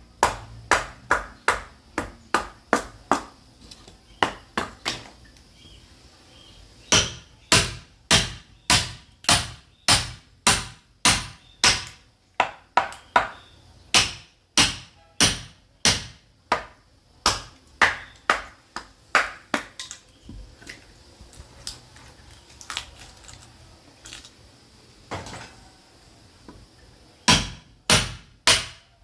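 Sledgehammer striking a steel chisel driven into caviúna firewood to split it, each blow a sharp ringing knock. The blows come about one or two a second, thin out to fewer, lighter strikes in the latter part, then come quickly and hard near the end.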